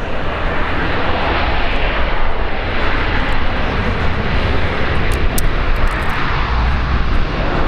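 Embraer 195 airliner's twin GE CF34 turbofans during its landing: a loud, steady jet rush with slowly sweeping tone bands.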